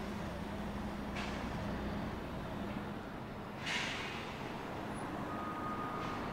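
City street traffic: vehicle engines running with a steady low rumble, and two short sharp hisses that fade away, the second the loudest, as from a bus or truck's air brakes.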